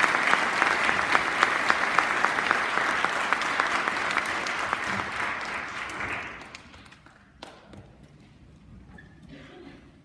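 Audience applauding, a dense patter of many hands that dies away about six and a half seconds in. A single knock follows, then faint stirring.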